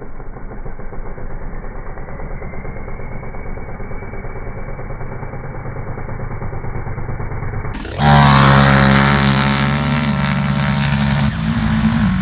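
ATV engine held at high revs, muffled, while its rear tyres spin on grass. About eight seconds in, a much louder engine note starts suddenly and climbs as a quad revs hard.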